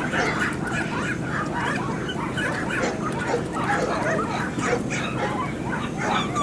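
Several dogs barking and yapping at once in quick, overlapping, irregular calls.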